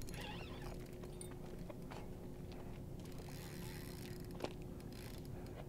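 Faint outdoor background with a steady low hum and a few scattered light clicks, one sharper click about four and a half seconds in.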